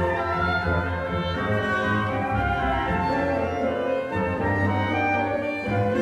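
Orchestral background music, with woodwinds, brass and strings playing sustained notes over a steady low bass.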